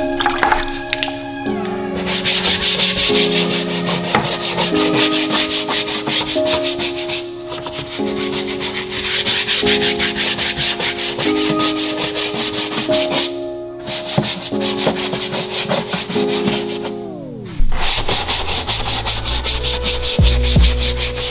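Stiff detailing brush scrubbing foam on a plastic wheel-arch liner, a fast run of scratchy strokes, over background music with shifting chords. The music cuts out briefly twice, slides down in pitch a few seconds before the end, and then heavy bass comes in.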